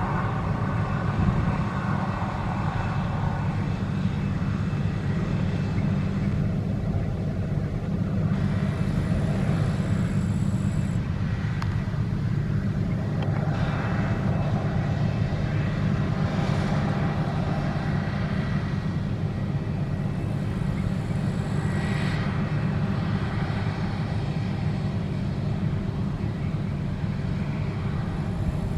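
Claas Lexion 670 combine harvester running steadily while harvesting barley: a constant low drone that holds an even level throughout.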